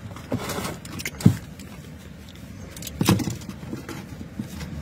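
Steady low hum inside a car cabin, broken by knocks and rustles of handling. The sharpest knock comes about a second in, and a short cluster of knocks follows around three seconds.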